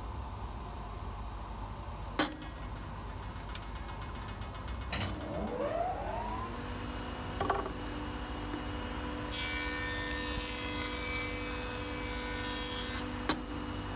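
SCM jointer with a helical insert cutterhead is switched on with a click about five seconds in. Its motor whines up to speed over about a second and a half, then runs with a steady hum. From about nine seconds there is a hiss for some four seconds, the cutterhead planing a board, and it stops abruptly.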